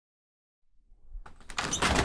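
Small bathroom sliding door beginning to slide, most likely being opened: a scraping, rolling sound with small clicks that starts about a second in and grows louder.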